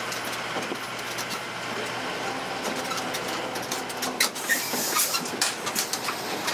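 Tourist road train driving along a street: its open carriages rattle and clatter with the engine running underneath. The low engine hum falls away about four seconds in, while the rattling goes on.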